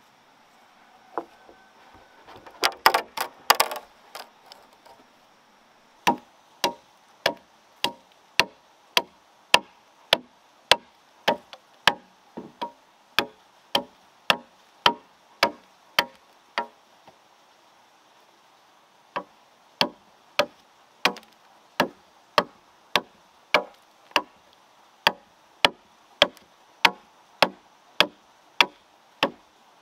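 Machete chopping the end of a wooden pole to a point: sharp, evenly paced strikes about every 0.6 s, after a quick flurry of knocks a few seconds in, with a short pause in the middle.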